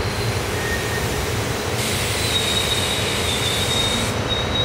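SEPTA Silverliner IV electric multiple-unit commuter train running past at speed, a steady rumble of steel wheels on rail. About two seconds in a thin, high-pitched wheel squeal starts and holds.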